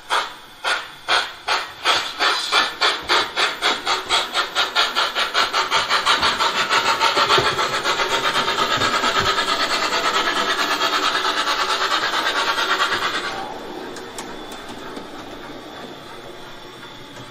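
Model steam locomotive's sound decoder (ESU LokSound 5) playing exhaust chuffs as the Gauge 1 Prussian T3 starts away. The chuffs quicken from about two or three a second until they blur into a steady rush. About 13 seconds in it drops suddenly to a much quieter hiss.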